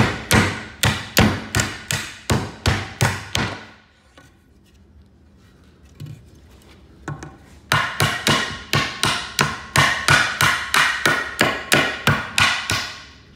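Claw hammer pounding nails back out of a pallet board, sharp ringing blows of steel on nail at about three a second. A fast run of blows, a pause of a few seconds with a couple of single knocks, then a second, longer run.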